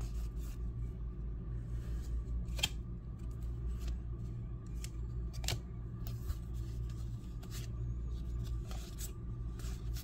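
A stack of glossy Topps trading cards being flipped through by hand: scattered short flicks and slides of card against card, two sharper snaps near the middle. A steady low hum runs underneath.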